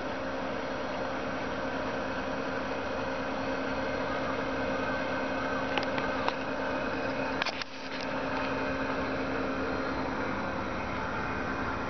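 Subaru Sambar van's small four-cylinder engine idling steadily, with a few light clicks about six to eight seconds in.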